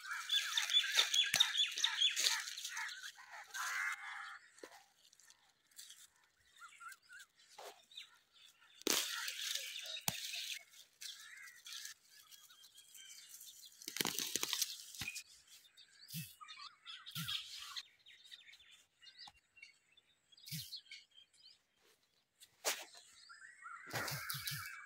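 Birds chirping and tweeting in scattered bursts, with a few brief clicks.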